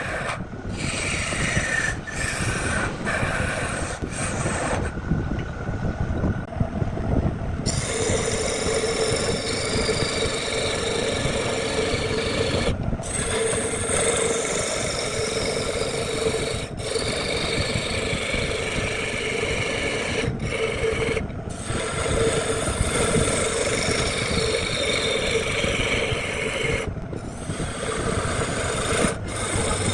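A turning tool cutting into a spinning wooden workpiece on a lathe: a continuous rough, rasping scrape of wood being shaved off, over a steady hum of the running lathe, broken by several brief dropouts.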